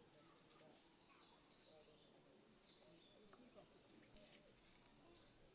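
Near silence, with faint birds chirping repeatedly in the background.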